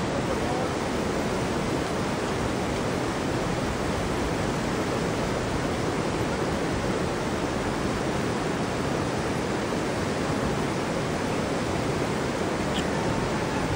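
Fast-flowing floodwater rushing across a road and breaking against a motorcycle stuck in the current: a steady, unbroken rush of water.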